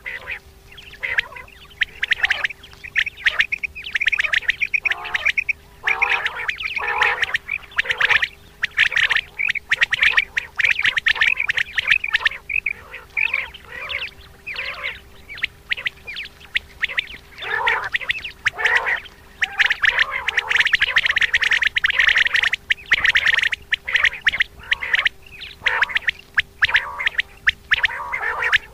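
Common quail calling in a rapid, chattering run of short, sharp calls, broken by brief pauses.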